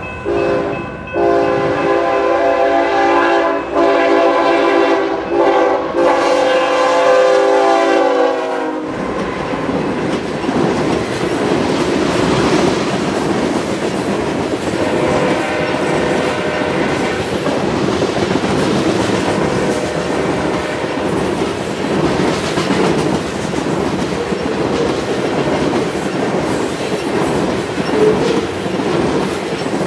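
Freight locomotive's air horn sounding a series of long blasts with short breaks at a grade crossing. About nine seconds in, its pitch drops and it cuts off as the locomotive passes. After that comes the steady, loud rolling noise of a train of tank cars going by over the crossing.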